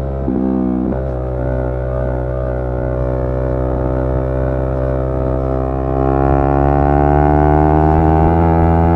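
Yamaha R3's 321 cc parallel-twin engine running under way: a brief dip in revs near the start as the rider shifts gear, then steady cruising that pulls a little harder past the middle.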